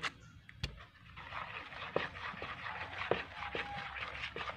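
Silicone spatula stirring thin, wet flour batter in a plastic bowl: a couple of knocks in the first second, then a rhythmic wet swishing with small ticks against the bowl from about a second in.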